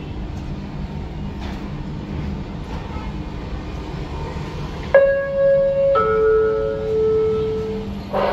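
Steady low rumble of the ferry's engines. About five seconds in, a two-note descending chime sounds: a higher ringing tone for about a second, then a lower one held for about two seconds, like a ship's public-address announcement chime.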